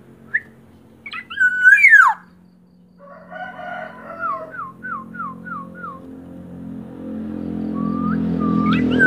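Black-naped oriole singing two loud, fluty whistled phrases, one about a second in and one near the end, each ending in a falling sweep. Between them comes a run of about five short repeated notes, and a low hum builds in the second half.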